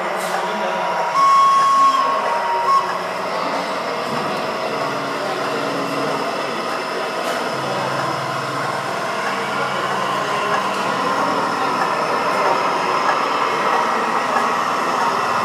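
Gauge 1 model of a Swiss Crocodile electric locomotive running slowly along the track, its motor, gearing and wheels making a steady running noise. About a second in, a short two-note tone sounds.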